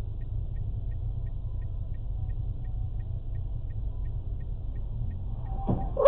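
Steady low rumble of a car driving, as picked up by a dashboard camera inside the vehicle, with faint regular ticking about three times a second and a short sound near the end.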